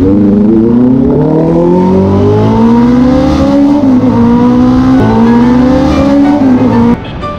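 Sport motorcycle engine accelerating hard: its pitch climbs for about four seconds, then dips and climbs again twice, like shifts up through the gears. It cuts off near the end as music begins.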